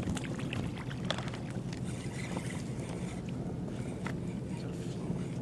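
Water lapping against a fishing kayak's hull with a steady low wash, broken by scattered small clicks and knocks of gear on the boat.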